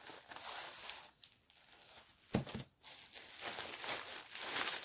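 Plastic packaging crinkling and rustling as it is handled and opened, in irregular bursts, with a couple of soft knocks about halfway through.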